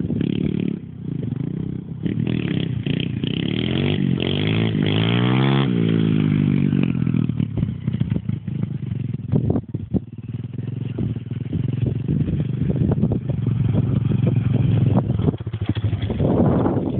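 Thumpstar 125 Pro Elite pit bike's single-cylinder engine running and revving under the rider. Its pitch swings up and down around four to six seconds in, and it runs more steadily through the second half.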